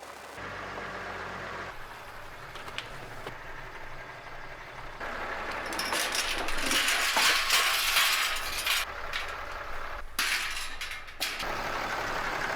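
A tractor engine running, with loud crunching and clattering of wood and debris being moved, strongest in the middle of the stretch and breaking off abruptly a couple of times.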